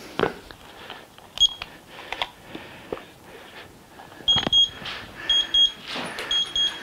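Electronic timer going off: pairs of short high beeps repeating about once a second, starting about four seconds in. Before that come a few clicks and knocks and one short beep.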